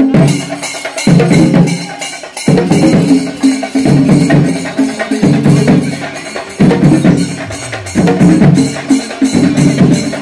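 Loud percussion-led music: fast, even drum strokes run throughout, with a low pitched part that comes in short phrases about every second and a half.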